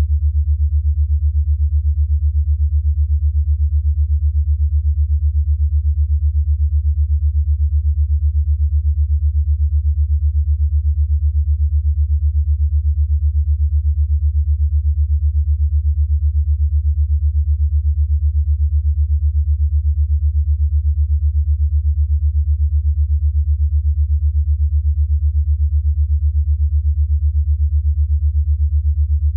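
A deep, steady electronic sine tone pulsing rapidly and evenly. It is an 8 Hz alpha-wave pulse of the kind used for brainwave entrainment.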